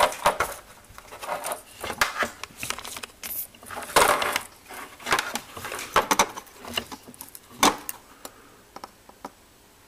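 Irregular clicks, taps and light rattles of a printed circuit board and soldering tools being handled on a workbench, with louder knocks about four and seven and a half seconds in, dying down in the last two seconds.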